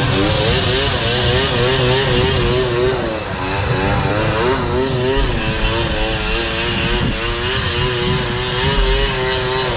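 Snowmobile engine running hard at high revs, its pitch wavering quickly up and down throughout, with a couple of brief dips.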